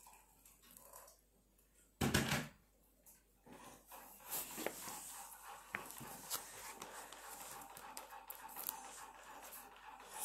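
Plastic Lego pieces handled and set down on a fabric mat: one sharp knock about two seconds in, then small clicks and rustling as pieces are picked up.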